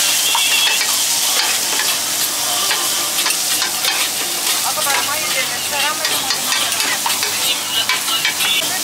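Meat patties sizzling on a hot flat-top griddle in a steady loud hiss, with a metal spatula scraping and tapping the plate in frequent short clicks and scrapes.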